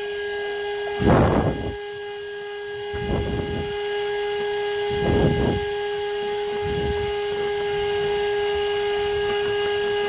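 AutoGrandpa 12V handheld car vacuum cleaner running with a steady whine, its hose and nozzle drawn over carpet. Four louder rushing swishes come at about 1, 3, 5 and 7 seconds in as the nozzle sweeps the carpet, the first the loudest.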